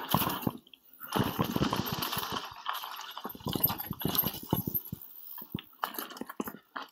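Mountain bike ridden over rough dirt trail: a rush of tyre noise on loose ground, then a run of sharp knocks and rattles from the bike over bumps.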